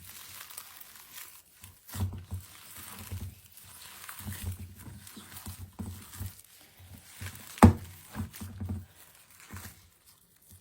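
Kitchen handling noises: scattered knocks, thumps and rustling, with one sharp knock about three-quarters of the way through.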